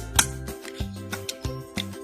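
Instrumental background music with a steady beat, a bass line that moves from note to note and short sharp ticks.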